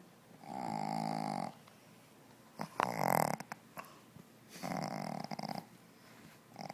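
A Shih Tzu dog snoring in three snores about two seconds apart, each lasting about a second. The dog's short snout is what makes her breathing this noisy.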